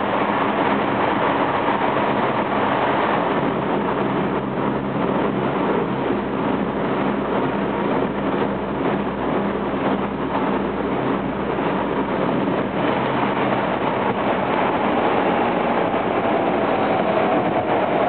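Running noise of a Tokyo Metro 07 series electric train heard from inside the car at speed: a steady rumble of wheels on rail and the car body. Near the end a faint whine from the VVVF inverter drive begins, falling in pitch.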